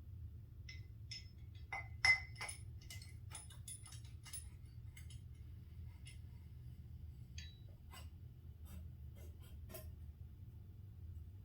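Light metal clinks and taps of motorcycle front fork parts (fork tube, damper tube, spring, retaining cup) being handled and fitted together, scattered and irregular, the loudest a pair of knocks about two seconds in, over a steady low hum.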